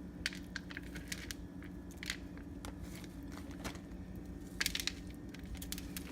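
Crushed corn flakes crunching and crackling as chicken wings are pressed into the coating, in scattered short crackles with a louder cluster about four and a half seconds in. A low steady hum runs underneath.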